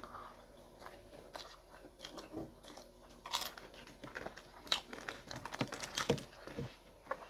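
Close-up chewing and biting into fried food, with scattered short, crisp crunches.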